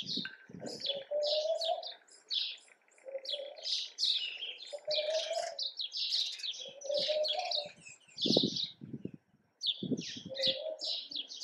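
Many small birds chirping busily, with repeated low cooing from doves underneath; two dull low bumps come near the end.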